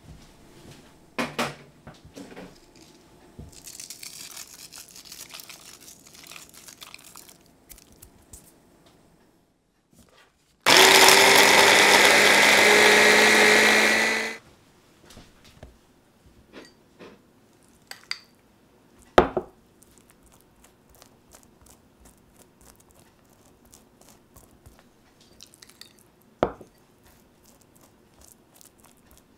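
Small food processor blitzing basil, cashews, garlic and olive oil into pesto. It starts suddenly about eleven seconds in, runs for about three and a half seconds with a motor whine that rises slightly in pitch, and stops. Quiet handling clicks and a few sharp taps come before and after it.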